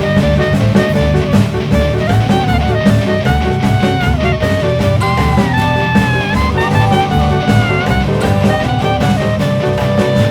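Background music: an instrumental passage with a melody of bending, gliding notes over a steady beat.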